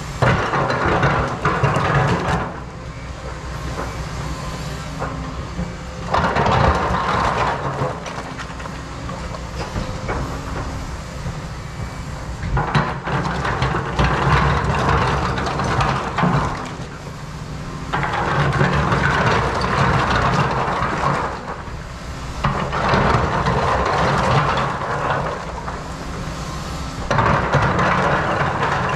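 Cat 335 excavator's diesel engine and hydraulics working under load: a steady low drone that swells about six times into louder, rattling noise lasting a few seconds each, as the machine works through its dig cycles.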